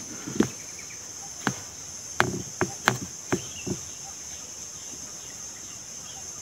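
Steady high-pitched buzz of insects, with about seven short sharp clicks and knocks in the first half.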